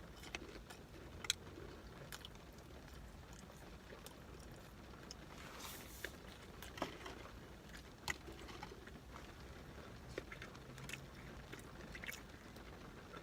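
Faint close-up mouth sounds of someone chewing food, with soft lip smacks and wet clicks every second or so.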